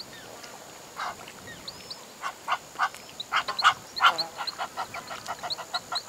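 A water bird giving a series of short, harsh calls: a single call about a second in, then calls coming faster until they form a quick run. Faint high chirps of small birds sound between them.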